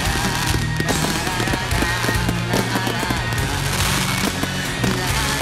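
Consumer aerial fireworks launching and bursting in quick succession, several bangs and crackles a second, mixed with a song that plays throughout.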